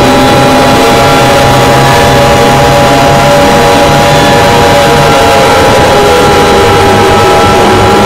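Fake Emergency Alert System-style alarm sound, very loud and heavily distorted: several steady held tones layered over a harsh, dense noise.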